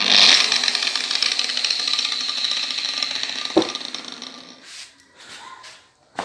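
Angle grinder cutting into the secondary winding of a microwave oven transformer: a high-pitched whine that starts suddenly and fades over about four and a half seconds. A single knock is heard about three and a half seconds in.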